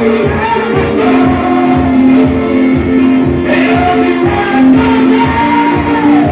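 Gospel worship music: voices singing held melody notes over a band with a steady drum beat.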